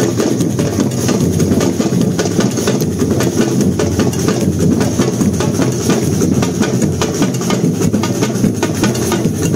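Drum ensemble playing together, a fast, dense run of strokes that keeps going without a break.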